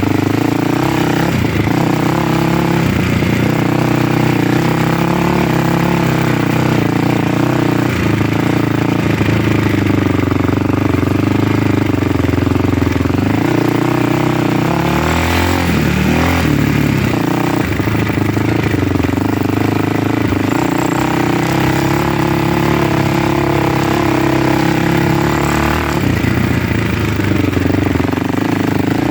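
A motor vehicle's engine running steadily while under way, its pitch wavering up and down a little, with a brief change in the sound around the middle.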